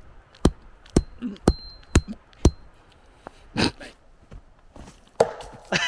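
Sharp metallic clinks about twice a second, several of them ringing briefly: metal tomahawk heads knocking. They stop about halfway through, and a few softer knocks follow.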